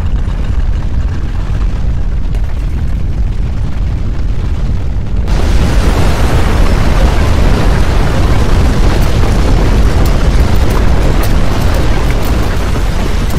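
Loud, deep rumbling noise of an earthquake-shaking sound effect. About five seconds in it suddenly gets louder and fuller, with more hiss over the rumble.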